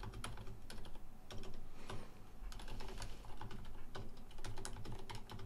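Typing on a computer keyboard: a run of quick, uneven key clicks as a sentence is typed.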